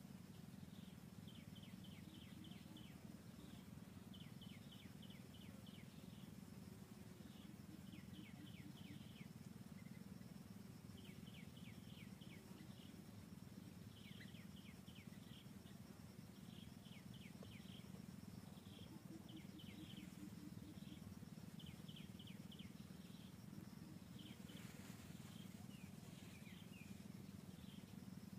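Faint outdoor ambience: short bursts of quick, high chirps, several notes each, repeating every second or so, over a low steady hum and a faint steady high tone.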